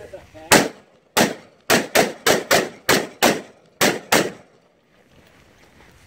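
Ten rapid rifle shots from an AR-15-style rifle with an optic, fired about a third to half a second apart in a steady string. The firing stops a little after four seconds in.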